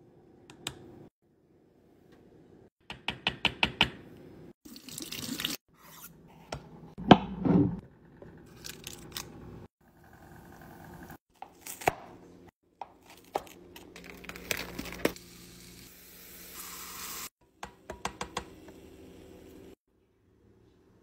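Kitchen food-prep and handling sounds: a spoon scraping and dolloping thick white sauce into a small plastic cup, and clicks, taps and scrapes of utensils and plastic containers. They come in short snatches that start and stop abruptly.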